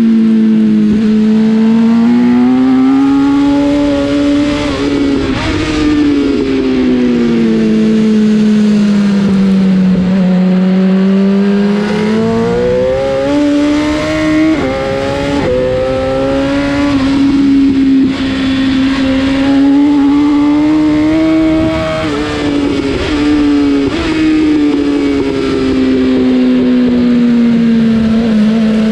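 BMW S1000 RR's inline-four engine at high revs, its pitch sweeping up and down as the bike accelerates and slows, with several quick jumps in pitch at gear changes. A rush of wind noise runs underneath.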